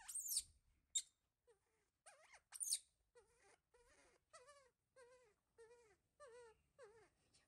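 Baby monkey crying: a few sharp, high shrieks in the first three seconds, then a steady run of whimpering cries, about one every half second, each wavering down in pitch. These are a baby's distress cries for its mother.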